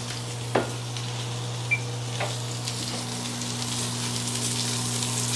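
Steak sizzling on a hot grill as it sears, a steady hiss with a few faint ticks and a steady low hum underneath.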